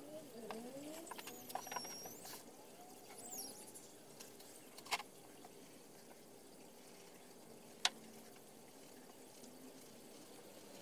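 Craft knife scratching through a paper stencil on a cutting mat, faint, with two sharp clicks, about five and eight seconds in.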